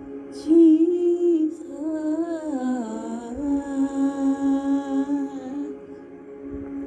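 A voice humming a slow wordless melody over sustained ambient worship music, with a high shimmering tone sounding through the middle.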